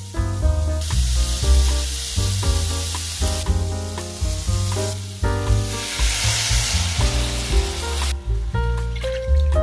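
Food sizzling in a hot frying pan, starting about a second in and stopping about a second and a half before the end, over background music.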